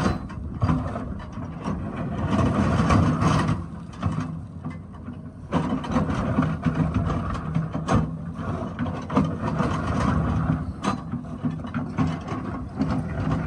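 Excavator engine running and swelling and easing with the work, with scraping and a few sharp knocks of the bucket against rock, the clearest about 8 and 11 seconds in.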